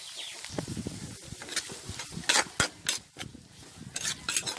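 A spatula scraping and knocking against a kadhai as chopped onions are stirred in hot oil, with irregular sharp clacks under a light frying sizzle.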